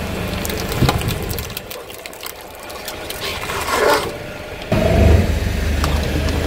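Car tyre rolling onto a flexible aluminium duct and flattening it, the thin foil crinkling and crackling in many small clicks over the low hum of the car's engine. The engine hum jumps suddenly louder about three-quarters of the way through.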